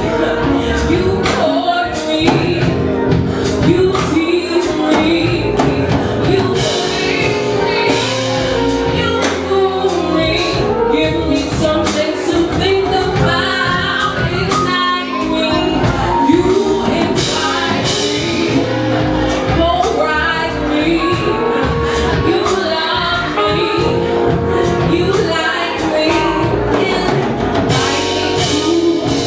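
A woman singing a soulful song live into a microphone, backed by a band with electric bass and drums.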